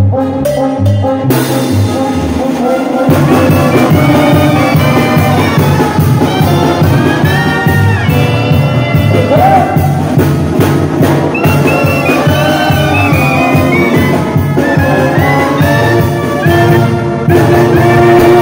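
Live Mexican banda music: a trumpet section plays a brass melody over a steady bass line and percussion. The band fills out about a second in, and the bass comes in fuller about three seconds in.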